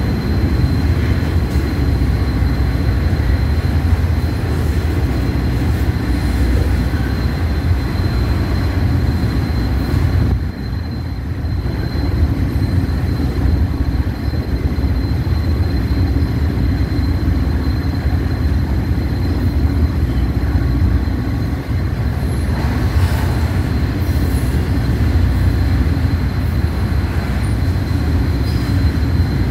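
Double-stack intermodal freight train rolling past at close range: a loud, steady rumble of wheels on rail and well cars passing. A thin, steady high whine runs underneath, and the noise dips briefly about ten seconds in.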